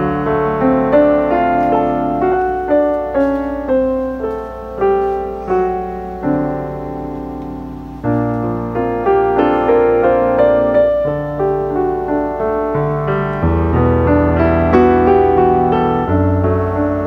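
Solo piano music: single notes over lower bass notes, each struck and fading away.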